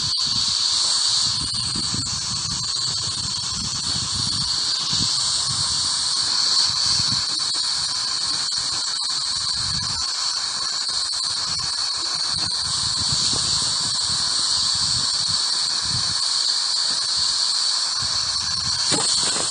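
Ghost Radio app's radio-style static: a steady hiss with a high whine on top and an uneven low rumble underneath.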